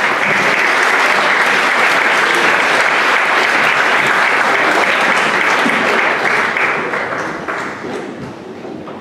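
Audience applauding, loud and steady, starting suddenly and tapering off near the end.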